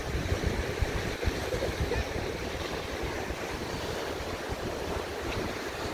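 Gulf of Mexico surf washing at the shoreline, with wind buffeting the phone's microphone in gusts, heaviest in the first couple of seconds.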